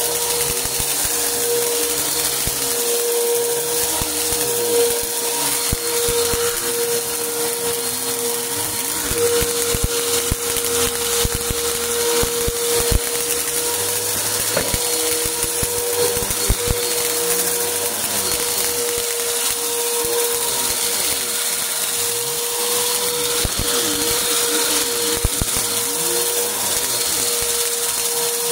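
Upright bagless vacuum cleaner running steadily on carpet, its motor whining at one fixed pitch. Scattered clicks and crunching come through as debris rattles up into the machine.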